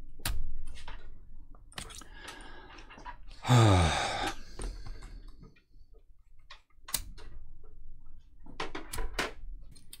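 Light plastic clicks and taps of fingers working at a laptop's ribbon-cable connectors on the open motherboard. About three and a half seconds in there is a short, loud, falling vocal groan.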